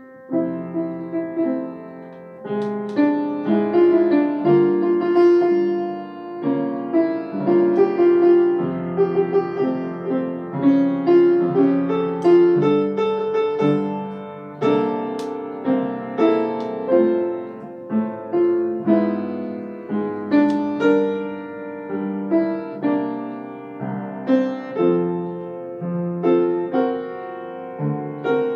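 Acoustic piano played solo: a slow piece of chords and melody, each note struck and left to ring out.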